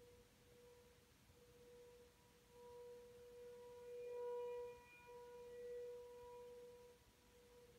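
American Signal T-128 outdoor warning siren sounding a steady tone for a tornado warning test, faint and distant. It swells louder about a third of the way in and fades back near the end.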